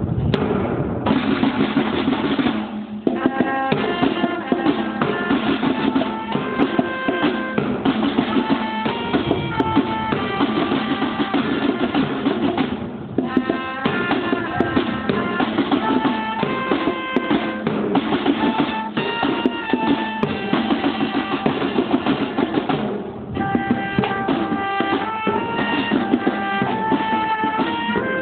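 School marching band playing: snare drums beating a fast rhythm under a stepping melody line, with three short pauses between phrases.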